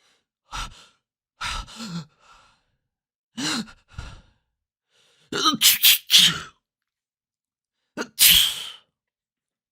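A run of human sneezes in different styles, each a short burst with silence between. A quick cluster of several comes around the middle, and a loud single sneeze near the end.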